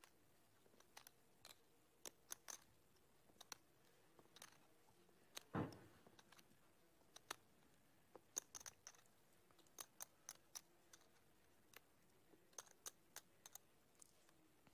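Near silence broken by scattered light clicks of poker chips being handled, with one louder soft thump about five and a half seconds in.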